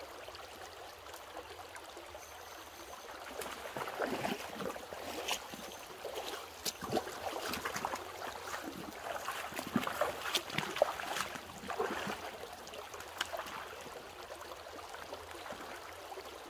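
Creek water running steadily over a shallow riffle. From about three and a half seconds in until about thirteen seconds, a hooked trout splashes and thrashes at the surface in a run of sharp splashes.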